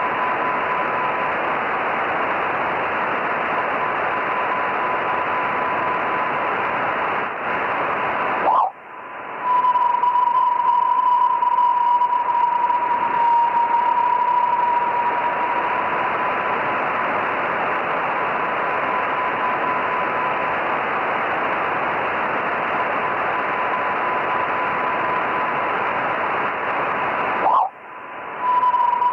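Radar receiver audio: a steady static hiss with a constant tone near 1 kHz. Twice, about a third of the way in and near the end, a short pitch glide and a brief dropout are followed by a stronger tone; the uploader presents these as echoes from Perseid meteors.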